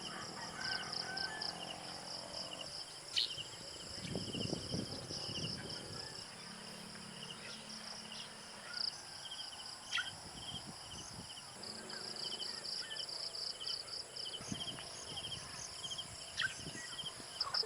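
Insects chirping in a steady run of short, high, pulsed calls over a continuous high-pitched hum, with a few sharp clicks and some low rumbling noise in the background.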